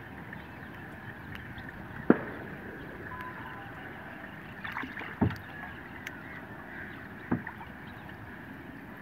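Small fishing boat on open water: a steady wash of water and wind, broken by three sharp knocks about two, five and seven seconds in.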